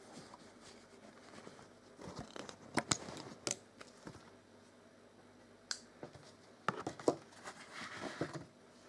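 Cloth rustling and a scattering of sharp clicks as sewn fabric is pulled out from under the presser foot of a vintage Frister & Rossmann sewing machine and the thread is cut.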